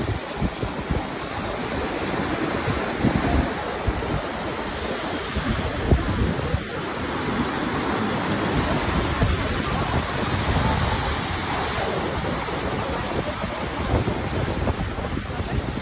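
Sea surf washing onto a sandy beach, with wind buffeting the microphone in uneven low rumbles.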